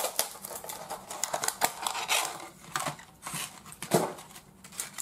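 Sportsclix booster packs and plastic figures being handled and unwrapped: a quick, irregular run of sharp clicks and packaging crinkles.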